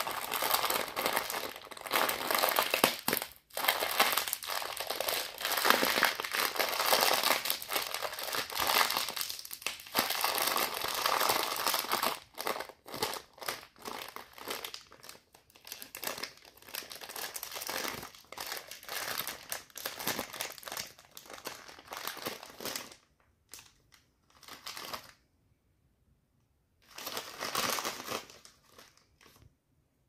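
Plastic Bon Pari candy bag crinkling as hands squeeze and pull it open. It crackles densely for the first half, then comes in shorter bursts with brief silent gaps, and there is one more burst near the end.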